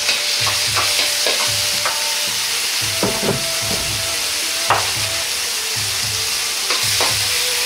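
Minced meat sizzling in hot oil in a wok, with a steady hiss. A metal ladle knocks and scrapes against the wok several times as the meat is stirred and spread.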